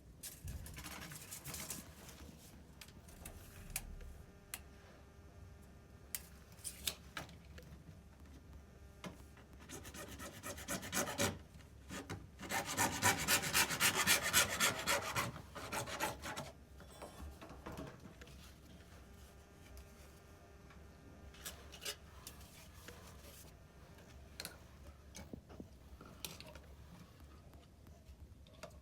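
Rapid back-and-forth rasping strokes of a hand tool working on plumbing pipe, mixed with scattered clicks and knocks. The strokes are loudest and most sustained from about twelve to sixteen seconds in.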